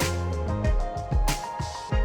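Background music with a steady beat: deep kick drum, cymbal hits and sustained melodic notes.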